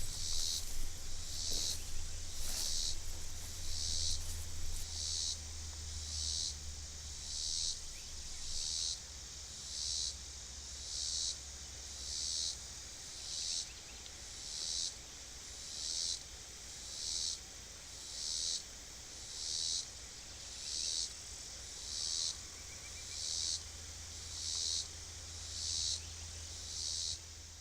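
An insect calling in a field, a buzzy pulse repeated steadily about once a second, over a low steady rumble.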